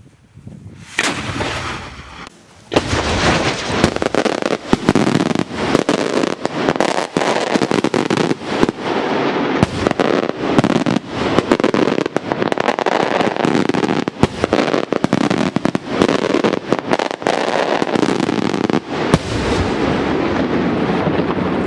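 Daylight fireworks going off in a rapid barrage of loud bangs over continuous crackling. A sharp report comes about a second in, and the dense barrage starts almost three seconds in and keeps going.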